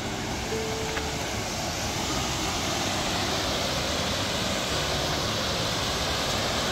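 Eagle Falls, a mountain waterfall, rushing over granite: a steady, even roar of falling white water that grows slightly louder after about two seconds.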